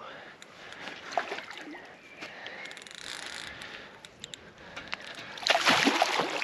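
Water splashing as a hooked grass carp thrashes its tail at the surface close in, with a loud burst of splashing near the end.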